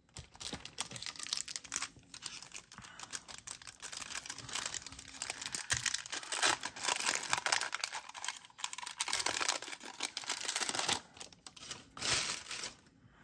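Foil wrapper of a 1991 Upper Deck football card pack crinkling and tearing as it is ripped open by hand.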